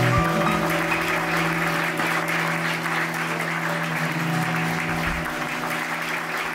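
Audience applauding as the band's last chord rings out, its held low note dying away about five seconds in.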